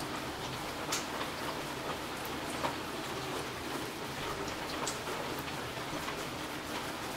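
Steady rain, an even hiss with individual drops tapping and dripping close by at irregular intervals.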